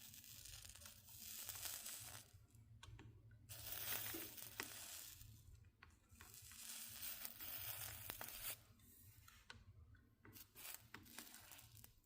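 Flux sizzling as a soldering iron melts solder along the seams of a stained glass panel, in four hissing stretches of about two seconds each, with a few faint ticks between them.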